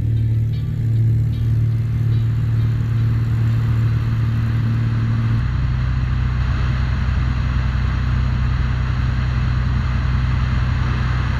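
Cessna O-1 Bird Dog's Continental six-cylinder 470-cubic-inch engine and propeller running at high power through takeoff and climb, a steady drone whose tone changes abruptly about five seconds in.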